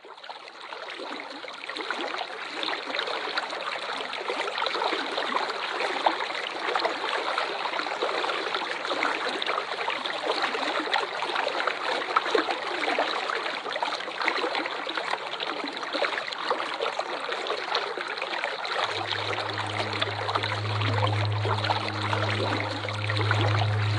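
Running water from a waterfall, a steady, dense splashing rush that fades in over the first couple of seconds. About 19 seconds in, a low steady hum joins underneath it.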